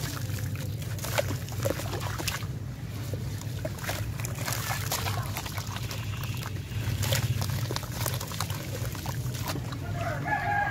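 A chunk of sand and cement crumbling and being squeezed by hand in a tub of water, with gritty crackles and grains and pieces pattering and sloshing into the watery slurry. A chicken calls near the end.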